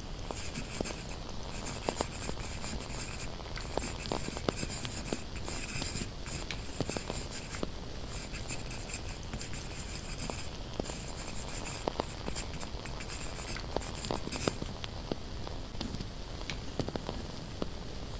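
Pen scratching across paper in stretches of writing strokes, with scattered crackles and pops from burning candles. The writing stops a few seconds before the end while the crackling goes on.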